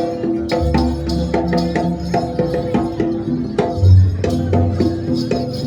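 Jaranan gamelan music: quick repeated metallophone notes over a steady run of drum strokes, with a deep gong-like tone about four seconds in.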